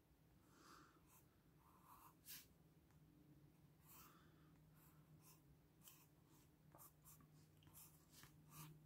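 Faint scratching of a watercolour pencil drawing short, irregular strokes on paper.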